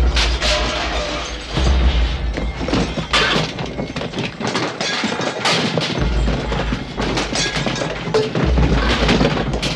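Music playing under a run of loud crashes, thuds and breaking as objects are smashed and thrown about.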